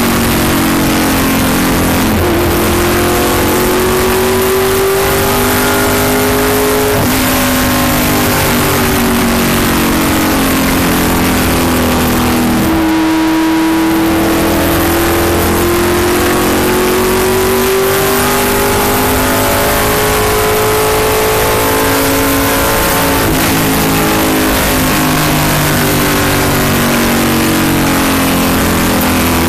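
NASCAR-style stock car V8 running hard at speed on an oval, heard from inside the cockpit over steady wind and road roar. The engine note climbs slowly, drops sharply about two seconds in and again near the middle, then climbs again.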